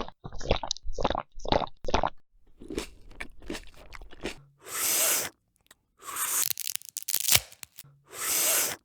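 Crunching sounds: a quick run of about five short crunches, then scattered clicks and three longer rustling bursts.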